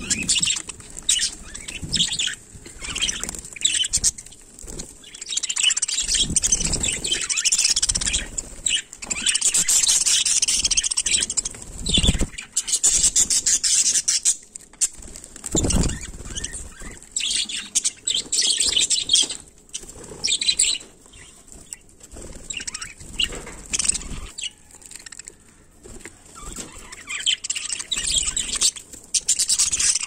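A flock of budgerigars chattering and chirping continuously, with wings flapping as birds fly about.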